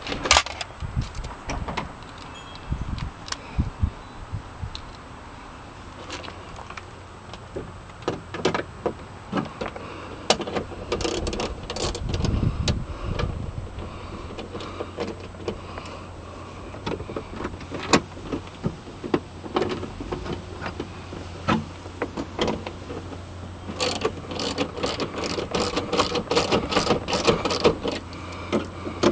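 Irregular clicks, knocks and rattles of tools and metal parts being handled during a motor replacement, with a low steady hum coming in about halfway and a denser clatter near the end.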